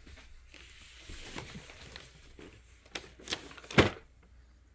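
Toy packaging being handled and pulled at, with faint rustling, then a few sharp knocks about three seconds in, the last and loudest a thud.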